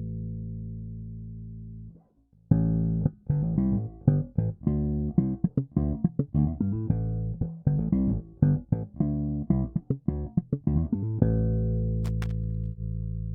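Fender Japan Jaguar electric bass played unaccompanied, recorded direct. A held note fades out, then after a short gap comes a quick run of plucked notes, and it ends on a long ringing note.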